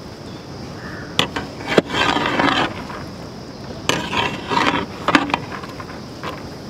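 Wooden spoon stirring a large metal pot of chopped mixed fruit: the fruit pieces tumble and slide over each other, with a few sharp knocks of the spoon against the pot.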